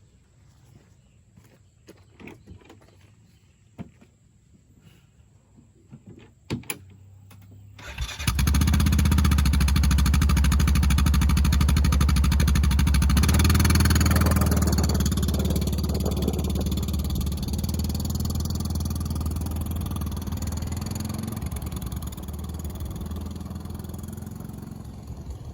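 A few faint clicks and knocks, then about eight seconds in an engine starts abruptly and runs steadily with a low hum, gradually fading over the following seconds as if moving away.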